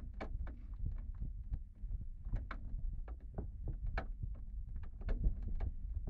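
Irregular small clicks and taps of a screw and screwdriver being tried in a computer case, a few a second, over low handling rumble.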